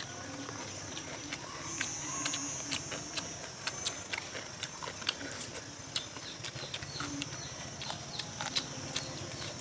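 Someone eating crab and vegetables: quick, irregular crunching and chewing clicks, several a second, over a steady high hiss.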